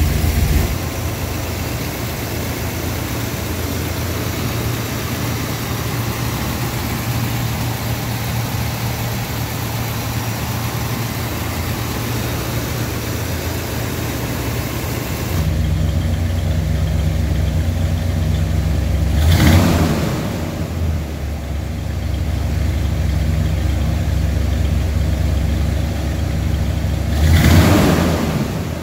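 1970 Oldsmobile 442's big-block 455 V8 with its rebuilt original carburetor idling steadily, a smooth, dialed-in idle. It gets louder and deeper about halfway through, and the throttle is blipped twice, briefly revving the engine.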